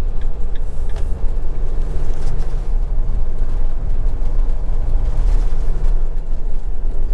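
Swift Kon-Tiki Sport 574 motorhome on the move, heard from inside the cab: a steady engine and road rumble at a constant level.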